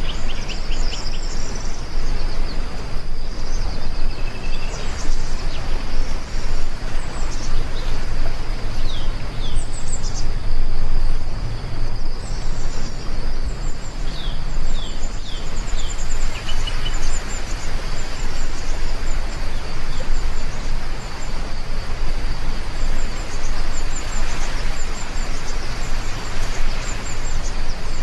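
Steady rain with birds chirping in short, repeated calls over it, a constant high-pitched hum, and a low rumble underneath.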